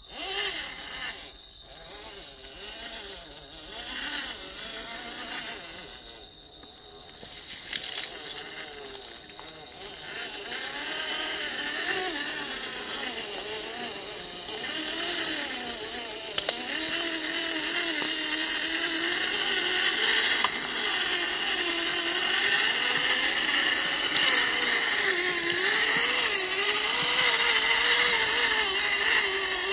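Small RC crawler's electric motor and gearbox whining, the pitch rising and falling as the throttle is worked, getting louder about ten seconds in.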